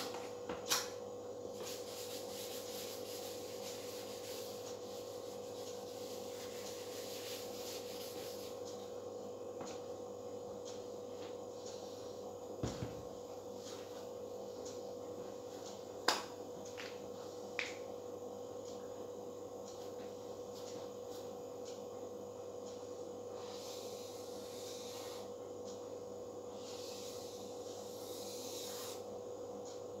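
A whiteboard being wiped with a duster: several seconds of scratchy rubbing, then a few sharp knocks. Near the end a marker squeaks and scratches across the whiteboard in two short stretches as circles are drawn, over a steady hum.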